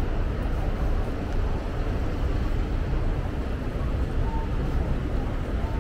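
Steady city street noise dominated by a low rumble, with no single event standing out.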